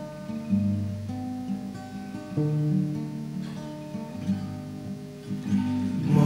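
Acoustic guitar playing a short instrumental passage between sung verses of a gospel song, the chords changing every second or so.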